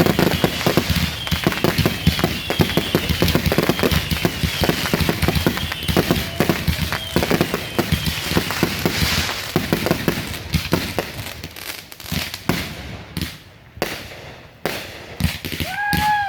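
Consumer fireworks going off in a dense barrage of rapid crackling bangs. After about twelve seconds it thins into scattered single reports.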